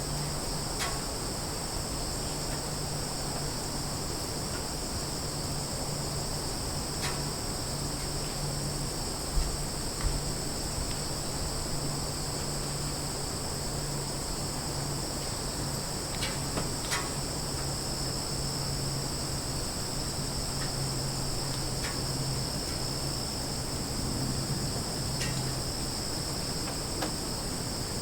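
Summer forest ambience dominated by a steady, high-pitched chorus of crickets and other insects, over a low steady hum. A few short chirps or ticks are scattered through, and two soft low thumps come about a third of the way in.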